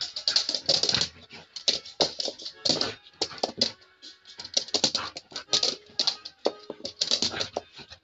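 Quick, irregular clicking and scuffing from a Belgian Shepherd (Groenendael) moving about on a wooden floor, with faint whines here and there.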